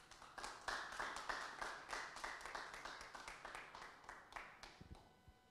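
Small audience clapping: a quick patter of claps that thins out and dies away about four and a half seconds in.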